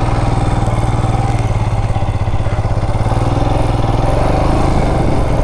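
Royal Enfield Himalayan BS6's 411 cc single-cylinder engine running at low, steady revs.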